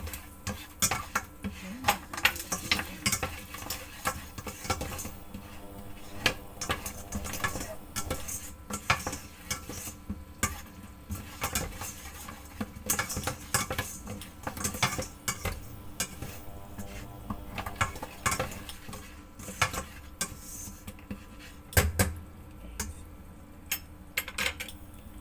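Black spatula scraping and tapping against the inside of a stainless steel pot while stirring, in irregular clicks and scrapes, with a louder knock near the end.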